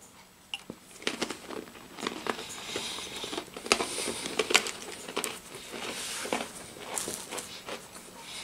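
Chewing a hard cracker, with a run of irregular crunches and the crinkle of a thin plastic wrapper being handled.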